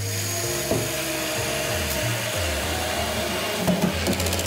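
Cordless electric screwdriver running steadily, driving a screw into a plywood panel, then stopping suddenly near the end.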